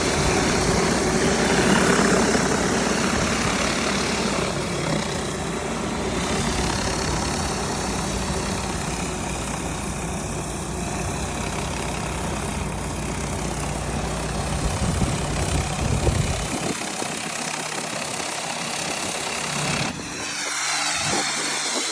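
Gas-engine pressure washer running steadily, its engine drone under a steady hiss; the low engine hum drops away about three-quarters of the way through.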